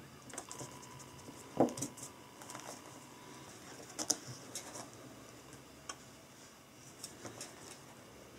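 Quiet handling noises at a desk: the pages of a paperback study book and a red plastic overlay sheet rustling and sliding, with scattered light clicks and taps on a wooden tabletop. The loudest is a single knock about a second and a half in.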